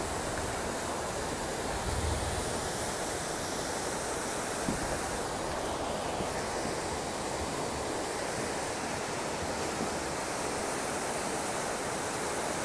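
A storm-swollen river in flood, muddy brown water rushing and churning over rocks in a steady, unbroken noise.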